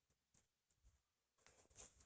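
Near silence, broken by a few faint short rustles and clicks, with a small cluster of them near the end.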